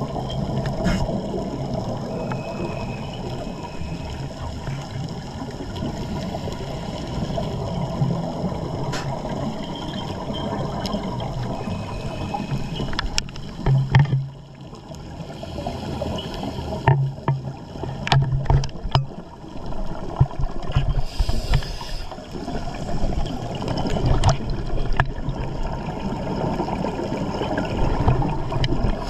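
Water heard underwater on a dive: a steady rushing noise with occasional sharp clicks and short low rumbles.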